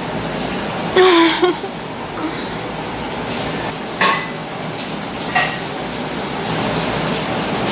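Kittens giving three short mews, about a second in, near the middle and shortly after, over a steady hiss.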